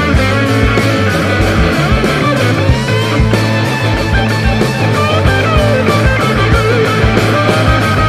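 Rock music track with guitar over a steady drum beat.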